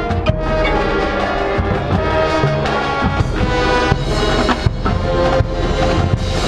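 Marching band playing its competition field show: sustained wind chords over drums, with frequent sharp percussion strikes.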